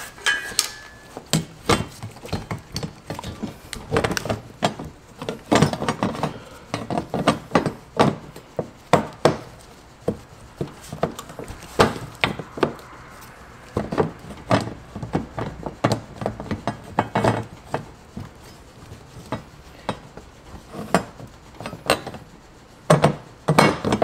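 Irregular sharp taps and knocks, with short pauses between runs and a loud pair near the end. This is the fuel pump module's lock ring being tapped around into place on the fuel tank while the pump is held pressed down.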